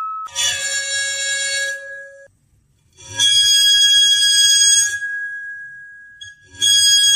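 Square metal Chladni plate bowed along its edge with a violin bow: loud, piercing ringing tones, three strokes of about a second and a half each. The middle note keeps ringing for a while after the bow stops.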